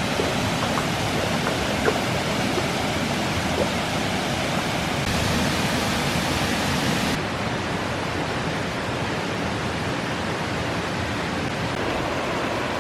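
Steady rush of falling water from Big Falls, a waterfall on the Little Duck River, heard close by. About seven seconds in, the highest hiss drops away abruptly.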